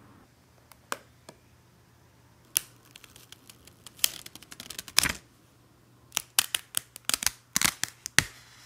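Thin clear plastic sheet crackling and popping as it is flexed and peeled away from cured resin, in scattered sharp crinkles that start about two seconds in and come in quick clusters near the middle and toward the end.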